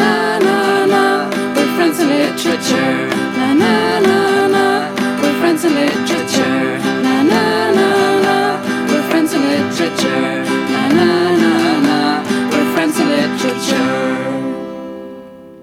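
Lo-fi Swedish indie pop song with a sparkling guitar melody, fading out near the end.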